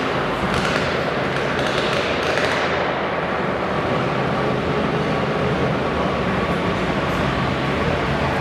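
Modified twin-cylinder pulling garden tractor engine idling steadily, over a dense background of arena noise.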